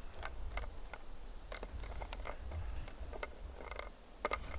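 Light, irregular clicks and taps of cooked yabby tails and claws being moved and set down on a white camping plate, about a dozen in all, with a sharper click near the end.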